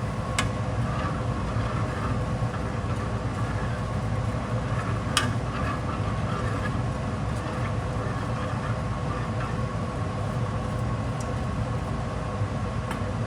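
Ventilation fan running with a steady hum. There are faint clicks about half a second and five seconds in.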